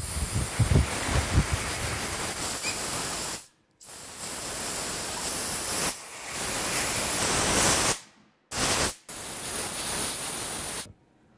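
Compressed-air blow gun on a workshop airline blasting air through Honda C90 carburettor parts to clear dirt from the jets and passages: four loud hisses of air with short breaks between them, the third one brief.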